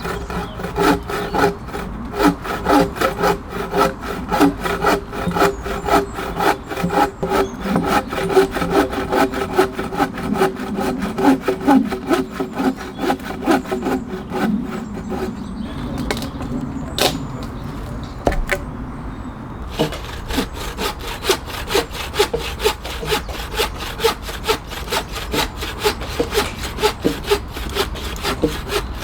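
Hand saw cutting through wood, with steady, rhythmic back-and-forth strokes.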